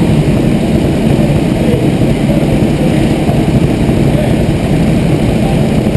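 Go-kart engines idling steadily and loudly, with no revving.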